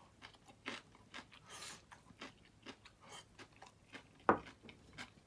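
A man chewing a mouthful of stir-fried green pepper and minced meat: soft, irregular crunches and mouth clicks, with one louder click about four seconds in.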